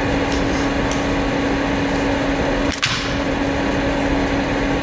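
A steady low hum with hiss, and over it a single sharp crack about three seconds in, with a few faint clicks before it, from scissors cutting into and prising open the shell of a large sea snail.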